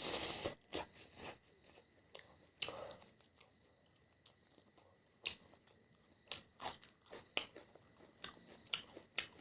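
A person eating close to the microphone, biting and chewing with irregular crunches and clicks. The loudest crunch comes right at the start.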